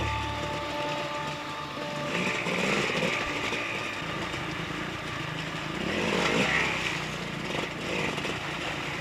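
Enduro dirt-bike engine revving as the bike picks its way over rocks and water, heard from on the bike, with two louder surges of throttle about two and six seconds in. The tail of background music fades out in the first second or two.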